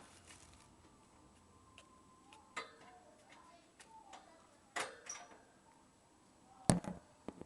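Pet hamster sneezing: about six short, sharp bursts spread irregularly, the loudest near the end.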